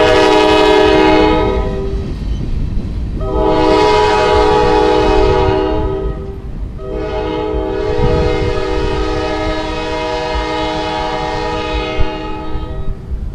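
A freight locomotive's multi-note air horn blows three times: a blast of about two seconds, one of about three and a half seconds, then a long one of about six seconds. A steady low rumble of the train runs underneath.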